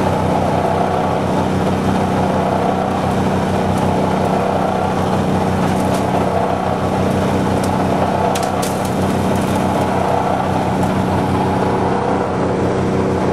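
Tractor engine running at a steady speed, driving a hammer mill through a flat belt from its belt pulley while the mill pulverizes dry clay into powder. The machinery's even hum and low pulsing carry on without a break, with a few light clicks about halfway.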